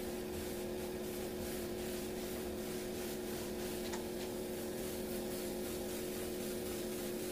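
Air spray gun hissing steadily as it sprays caldera orange-peel texture paint onto a wooden speaker box, with a steady low hum underneath.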